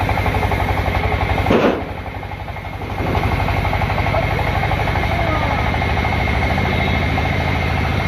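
Tractor engine idling with a fast, steady chugging. About a second and a half in, a heavy thud as a log is dropped from the trailer, and the engine sound is briefly quieter for a second or so after it.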